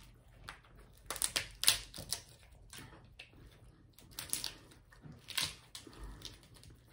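Lobster tail shells cracking and crackling as they are pulled apart by hand: an irregular run of sharp clicks, bunched in two spells.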